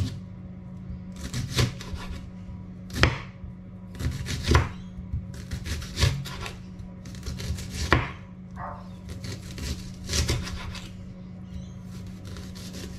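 Chef's knife cutting up half an onion on a wooden chopping board: a dozen or so sharp, unevenly spaced knife strikes on the board, with slicing between them.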